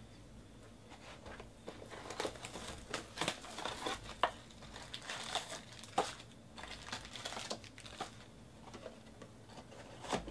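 Wrapped trading-card packs crinkling and rustling as they are lifted out of a cardboard hobby box and stacked, with irregular sharp clicks. The rustling thins out near the end.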